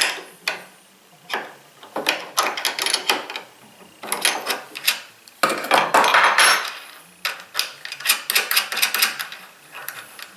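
Small metal hardware being handled on a bench: a wing nut and nut being taken off a threaded stud, with irregular clicks and clinks and a few short scraping sounds.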